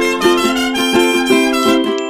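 Background music: a bright plucked-string tune, ukulele-like, with quick notes.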